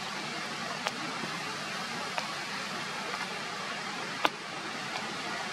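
Steady hiss of falling rain, with three short sharp ticks, the loudest about four seconds in.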